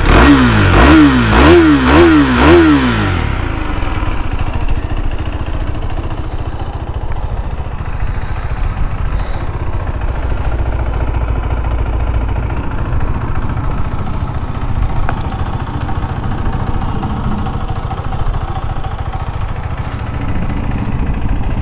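2023 KTM RC 390's 373 cc single-cylinder engine, through its stock exhaust, revved in a quick series of throttle blips over the first three seconds, then settling to a steady idle.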